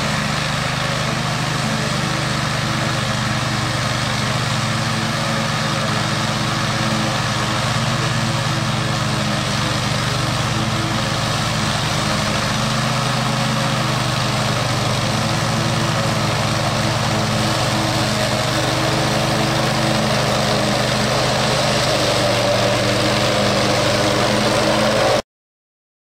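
Briggs & Stratton 344 cc industrial petrol engine of a self-propelled high-grass mower running steadily under load while its mulching blades cut through tall grass. The sound stops abruptly near the end.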